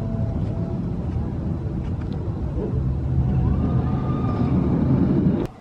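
Rumble of the Wildfire wooden roller coaster's train running on its Topper Track, growing louder about three seconds in and cutting off suddenly just before the end.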